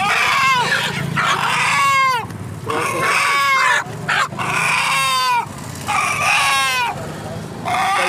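Desi (Indian country) chicken, legs tied and being handled, giving a series of loud distress squawks. Each call falls in pitch, about one every one and a half seconds.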